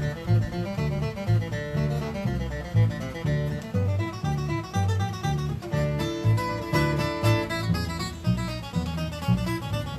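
Steel-string acoustic guitar flatpicking a bluegrass fiddle tune over an upright bass that keeps a steady beat of about two notes a second. A denser run of quick guitar notes comes a little past the middle.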